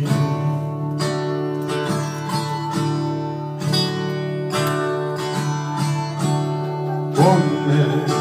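Acoustic guitar strummed in a steady rhythm, about one stroke a second, the chords ringing on between strokes: an instrumental passage between the sung verses of a folk-style song.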